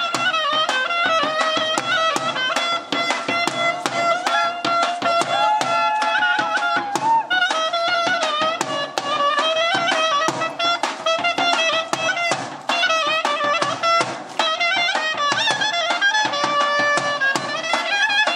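Live clarinet and double-headed drum playing a dance tune. The clarinet carries a winding melody over steady stick strokes on the drum.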